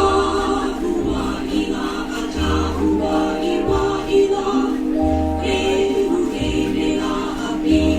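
Show music starting: a chorus of voices sings a Hawaiian-style luau number over a pulsing bass line.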